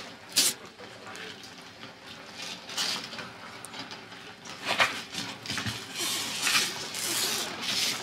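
Velcro hook-and-loop fabric tearing apart in short rasping rips as a Velcro-covered jumpsuit is pulled free: a sharp rip about half a second in, another near five seconds, and longer rasps around six to seven seconds, with shuffling and clatter of handling between them.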